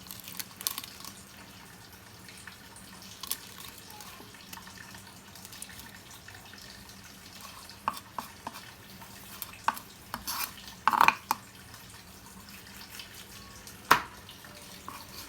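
Fish being cleaned and cut: a steady wash of water under scattered sharp clicks and knocks, the loudest about eleven and fourteen seconds in.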